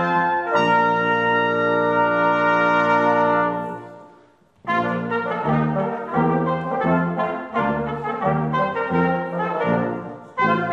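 Brass ensemble playing: a long held chord that fades away about four seconds in, then, after a brief gap, a new passage of shorter, moving notes.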